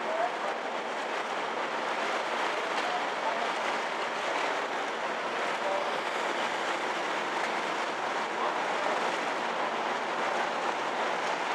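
Steady rushing noise aboard the car ferry Kuniga under way, the ship's running noise blended with water noise in an even, unbroken hiss.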